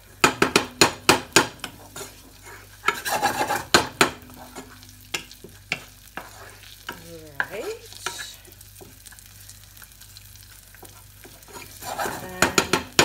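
Wooden spoon scraping and knocking against a small nonstick saucepan as chopped red onion and garlic are stirred, the pan frying with a low sizzle. Quick runs of knocks come at the start, again about three seconds in, and near the end, with quieter sizzling between.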